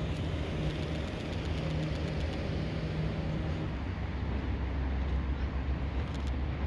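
An engine running steadily with a low hum. The hum deepens about four seconds in.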